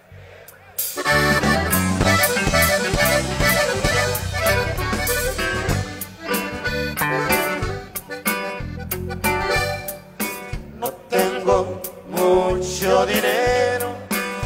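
Live norteño band playing an instrumental break, with the button accordion leading over bajo sexto, bass and drums. The full band comes in sharply about a second in, after a quiet moment.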